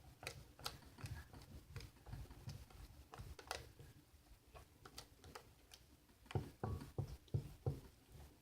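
Spatula stirring a slime mixture of glue, shaving cream and contact solution in a mixing bowl: faint, irregular clicks and scrapes, with a few louder ones near the end.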